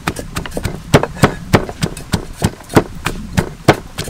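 Wooden pestle pounding garlic and sliced lemongrass in a wooden mortar for curry paste: a steady rhythm of dull thuds, about three strikes a second.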